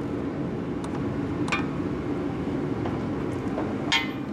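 A wrench clicking and clinking against a threaded steel oil-line T fitting as it is tightened into the engine's oil pressure sensor port. There are a few sharp metallic clicks, the loudest about a second and a half in and near the end, the last ringing briefly, over a steady low hum.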